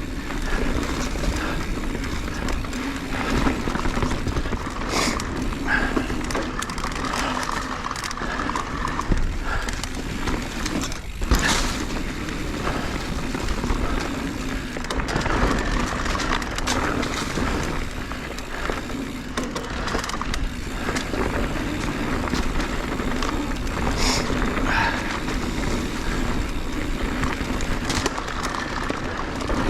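Mountain bike riding fast down a rocky dirt trail: tyres rolling over rock and dirt with a steady rumble, and the bike rattling with scattered sharp knocks as it hits rocks. One hard knock about eleven seconds in.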